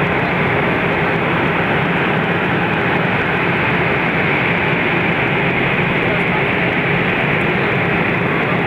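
Airbus A320 airliner's jet engines running at taxi idle as it taxis, a steady rushing jet noise with a low hum that holds at one level throughout.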